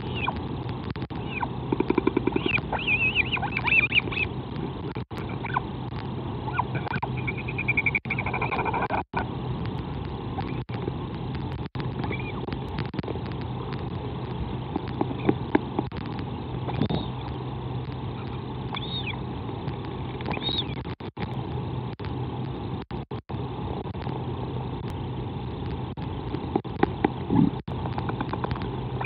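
Northern royal albatross calls at the nest as an adult arrives and feeds its chick: a cluster of calls about two seconds in, a longer held call about eight seconds in, then scattered short calls. Behind them is a steady rushing background with a low hum, broken by a few brief dropouts.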